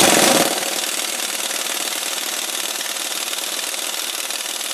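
Pneumatic impact wrench hammering rapidly and steadily. It starts suddenly and is loudest in its first half second. It is undoing the 18 mm nut on the upper end of a sway bar link.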